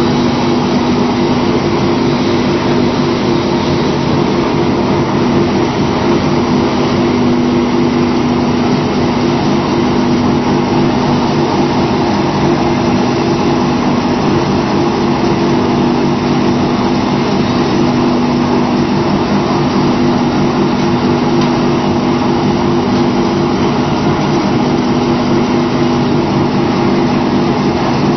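Briquetting machine running steadily while producing briquettes: a continuous mechanical hum with two steady low drone tones and no change in pace.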